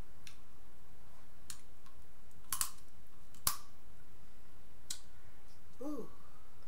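Eating and handling a seafood boil by hand. There are scattered sharp clicks, the two loudest about two and a half and three and a half seconds in, and a brief hum of the voice near the end, over a steady low background hum.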